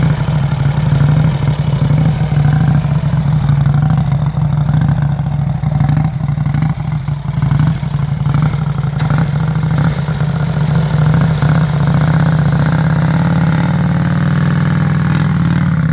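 Vincent 1000 motorcycle's 998 cc air-cooled V-twin engine idling steadily.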